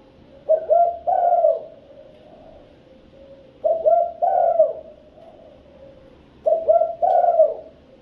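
Spotted dove cooing: three phrases about three seconds apart, each two short notes and then a longer drawn-out one.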